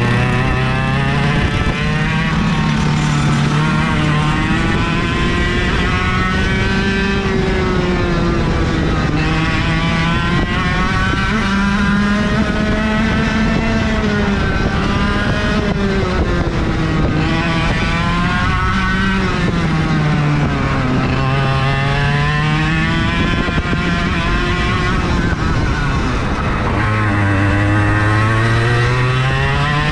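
IAME KA100 two-stroke kart engine heard onboard at racing speed, its pitch climbing for a few seconds on each straight and dropping back into each corner, about six times over.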